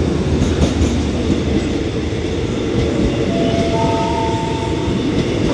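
Diesel-hauled passenger coaches rolling past close by, a steady loud rumble of steel wheels on the rails with some clicking over the joints. From about three seconds in, a faint thin squeal of wheels or brakes sits above it for a second or two.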